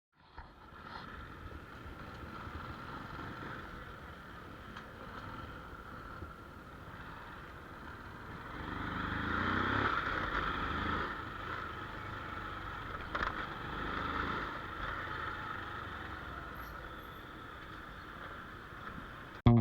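Outdoor ambience with a motor vehicle engine, which grows louder and sweeps in pitch around the middle, then fades back to a steady background hum.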